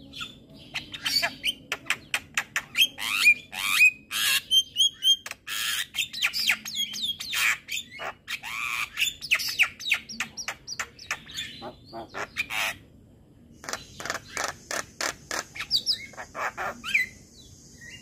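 Javan myna calling in a fast, varied run of harsh squawks, sharp clicks and short whistles, with a brief pause about midway. A steady high hiss comes in near the end.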